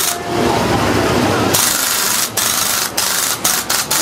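Mounted shooting-gallery gun firing with a continuous rattle, then about halfway through in shorter and shorter bursts with brief breaks between them.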